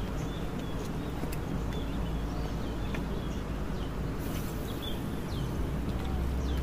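Small birds chirping repeatedly over a steady low rumble of wind on the microphone.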